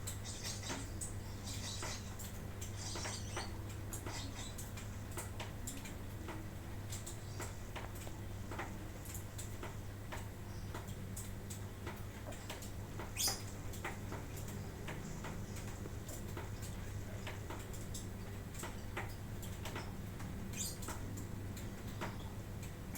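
A few brief, high lovebird chirps in the first few seconds, then scattered small irregular clicks and taps, one louder than the rest about halfway through, over a steady low hum.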